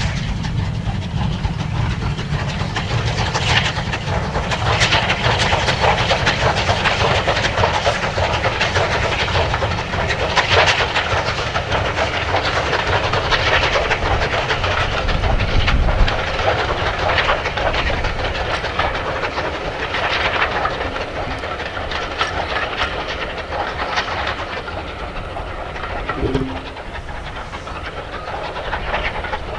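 Bulleid Battle of Britain class steam locomotive 34070 Manston working hard with a train of coaches: a fast, steady stream of exhaust beats over the rumble and clatter of wheels on rail. It grows quieter in the last few seconds as the train draws away.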